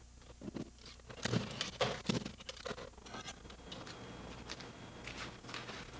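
Feet of a powered bipedal walking robot striking and scuffing a wooden walkway: a string of knocks and clatters, the loudest coming about one to two seconds in, followed by lighter ticks and scrapes.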